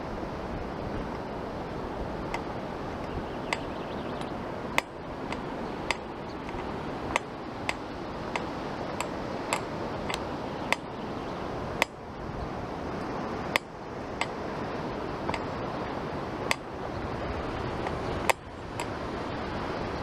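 Steady rush of ocean surf breaking on the beach below, with sharp clicks about every half second to second, in time with walking steps.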